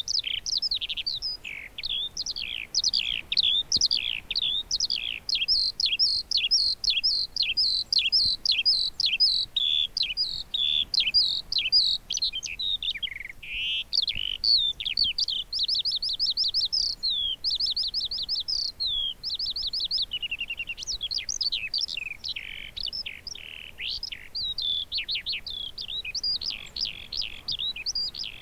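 Eurasian skylark singing: one long, unbroken stream of rapid, high warbling notes and fast trills.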